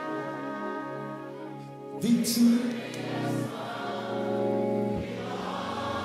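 Live gospel music: a held chord fades for about two seconds, then the band comes back in suddenly and loudly, with a choir and congregation singing over it.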